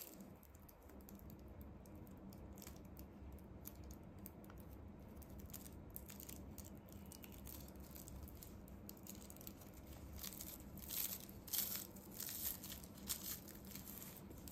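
Polyethylene raffia packing tape (suzuran tape) crinkling and rustling as a tapestry needle pulls its end through the crocheted stitches, in short scattered crackles that grow busier and louder in the second half, over a faint steady hum.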